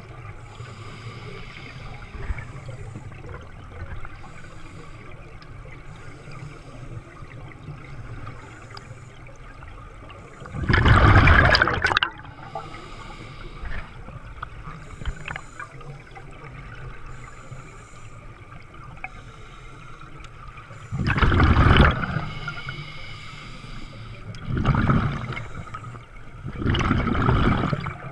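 Scuba regulator exhaling underwater: four loud bubbling rushes of air, each about a second long, spaced unevenly over a steady low underwater rumble and hiss.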